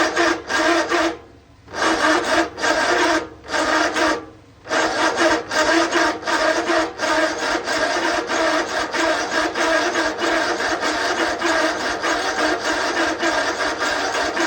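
A John Deere riding mower's electric starter cranking the engine, with a rhythmic chugging of about three strokes a second. It cranks in two short bursts, then in one long run of about ten seconds, and the engine does not catch.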